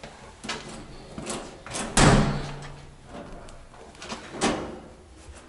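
A door being handled: small clicks and rattles, a loud bang about two seconds in that leaves a short low ringing hum, and another knock near the end.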